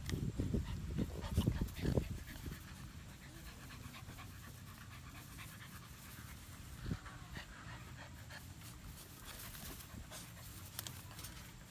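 American Bully puppies panting as they tug and wrestle over a rope toy, louder and more scuffling for the first two seconds, then quieter.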